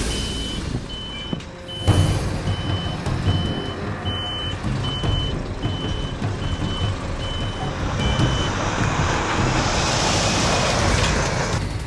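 A truck's reversing alarm sounds a string of about eleven short, even, high beeps, a little over one a second, over the steady rumble of a heavy Scania truck's diesel engine. The beeping stops about two-thirds of the way through, and a hiss rises near the end.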